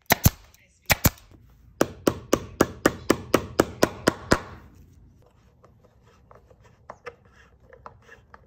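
Pneumatic staple gun firing four staples in two quick pairs, then a small hammer tapping brass upholstery tacks into a fabric-covered wooden stool frame, about four strikes a second, stopping about halfway through. Faint light taps follow.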